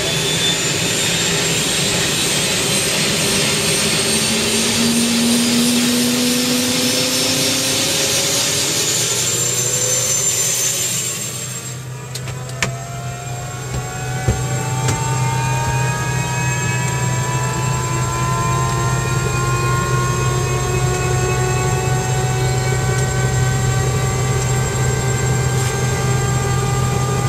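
Helicopter turbine heard from inside the cabin while parked on the ground. A loud rushing noise with a rising tone cuts off about twelve seconds in. Then a steady low hum and a whine climb slowly and evenly in pitch as the engine spools up.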